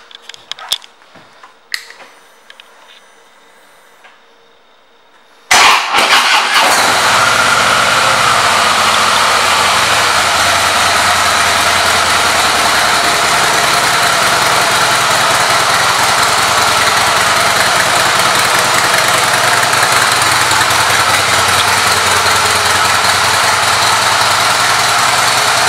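A few faint clicks, then the 2017 Harley-Davidson Breakout's Twin Cam V-twin cranks and fires about five seconds in and settles into a steady idle.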